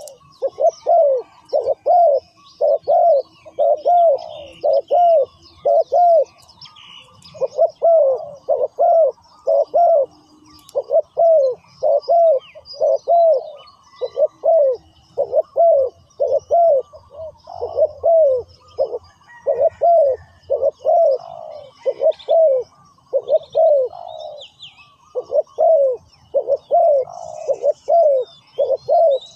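Decoy spotted dove cooing over and over to call wild doves: a long string of arching coo notes, about two a second, broken now and then by short pauses. Faint high chirps of small birds sound behind it.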